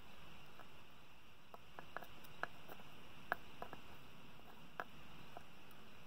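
Quiet room hiss with about a dozen faint, irregular small clicks and ticks as a squeeze-bulb desoldering iron's hot tip is held against a solder joint on the back of a circuit board.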